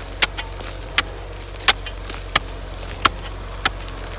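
Regular sharp knocks, about three every two seconds, over a steady low hum.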